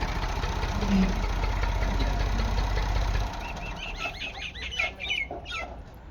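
An engine idling with a rapid, even beat that drops away about three seconds in, followed by a run of short, high clucking calls from chickens.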